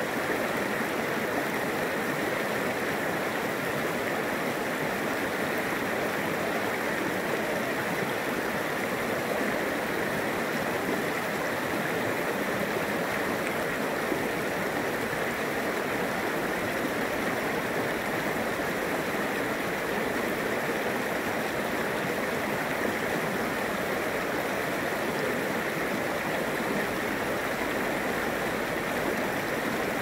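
Shallow creek running over rocks and stones: a steady, even rush of water.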